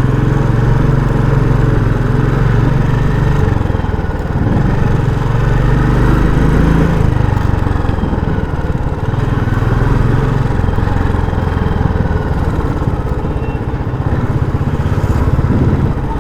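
A Royal Enfield Classic 350's air-cooled single-cylinder engine runs through its stock exhaust under way. The engine note drops and picks up again a few times as the revs change.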